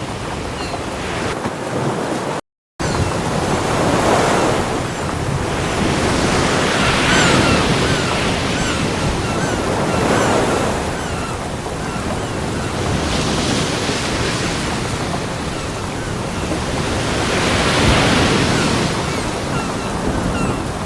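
Ocean waves breaking on a beach in a continuous wash that swells with each wave every three to four seconds. The sound cuts out briefly about two and a half seconds in.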